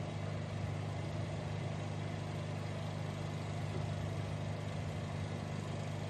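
Steady low hum of a running motor, even and unbroken.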